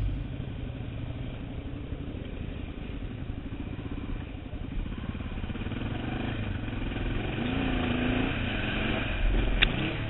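Dual-sport motorcycle engine running, getting louder over several seconds with a brief rise in pitch as it revs, and a sharp click near the end.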